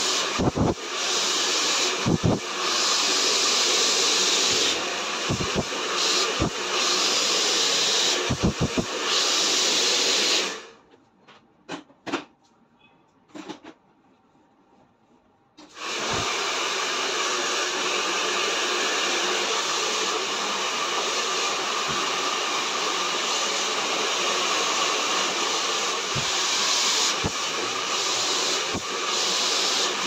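Handheld hair dryer blowing steadily on high, a loud even rush of air, as it dries and straightens long hair over a brush. The air noise drops away for about five seconds around the middle, leaving only a few faint clicks, then comes back steady.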